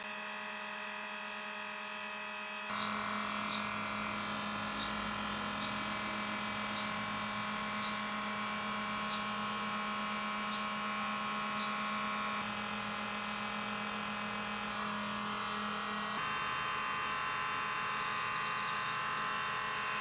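Homemade air-to-water heat pump running, a steady electric hum and buzz from its compressor and circulating water pump. About three seconds in, a series of light clicks comes roughly once a second for about nine seconds.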